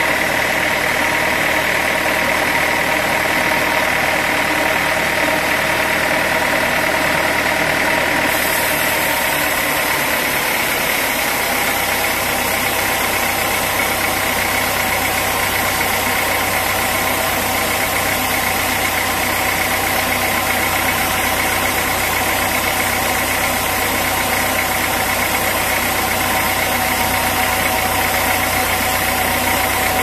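Sawmill machinery running steadily, with a constant high-pitched tone over a mechanical drone. A hiss comes in about eight seconds in, and a deeper hum joins a few seconds later.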